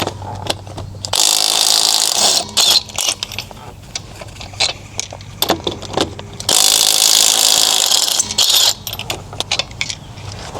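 Cordless impact wrench run in two bursts of about a second and a half each, loosening fasteners on a Dodge Durango's front wheel hub, with clicks and knocks of tools and metal parts between the bursts.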